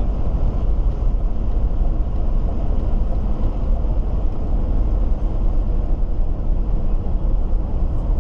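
Steady road noise of a BMW X5 3.0d diesel cruising at highway speed: an even low rumble that holds without change.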